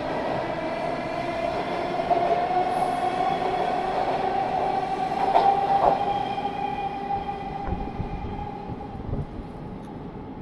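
TTC T1 subway train pulling out of a station: a steady motor whine that rises slightly in pitch as it picks up speed, over the rumble of the wheels on the rails, with a couple of sharp clicks midway. The sound fades as the train moves off down the tunnel.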